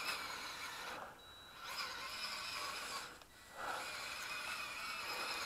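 Small electric motor and gears of a 1/16 RC rock crawler on snow tracks whirring as it drives through snow, cutting out briefly twice, about a second in and about three seconds in.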